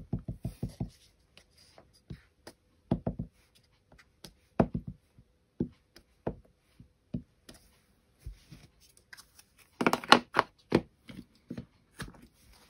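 Clear acrylic stamp tapping repeatedly on an ink pad and pressing down onto card: scattered light knocks, with a quick run of taps at the start and a louder flurry about ten seconds in.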